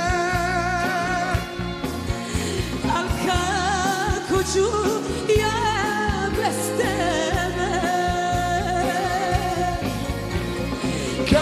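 Serbian pop-folk song: a woman singing a drawn-out melody with wide vibrato over a band with a steady bass beat.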